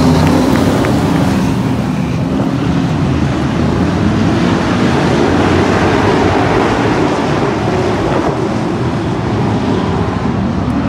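Dirt-track pro stock race cars running on the oval. One car's engine is close by at the start and fades within a couple of seconds, leaving the steady blended engine noise of the field farther round the track.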